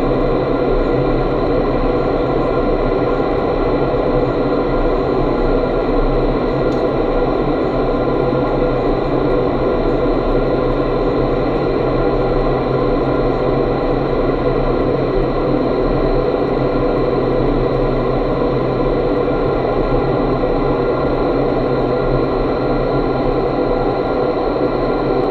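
Indoor vertical wind tunnel in operation: the air stream rushes steadily up through the flight chamber, with several steady tones running through it. It is heard from the chamber's mesh floor, right in the airflow.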